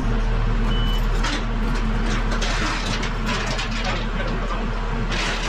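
Loader's diesel engine running steadily, with one short beep just under a second in. From about a second in there is scattered metallic clinking and rattling as chains are handled on the plow blade.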